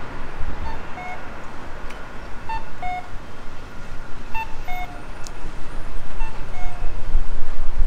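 Electronic beeper sounding a short falling two-note beep, a higher note then a lower one, about every two seconds, over a steady low street rumble that grows louder near the end.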